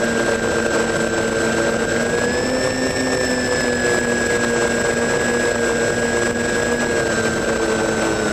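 Radio-controlled model airplane's motor and propeller running steadily at flying speed, heard from a camera on board, with wind rushing past; the pitch rises slightly about two seconds in.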